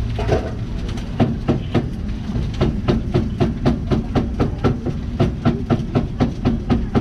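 A cleaver chopping meat on a board in quick, even strokes, about four knocks a second, over a steady low rumble.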